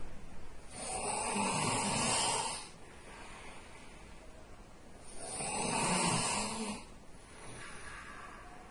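A sleeping man snoring loudly: two long snores about four seconds apart, each lasting about two seconds, with a fluttering low rattle, then a faint breath.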